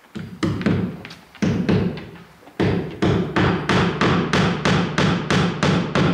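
Hammer blows on wood framing, a few irregular knocks and then a steady run of blows about three a second, as the new sliding glass door frame is fastened in its opening.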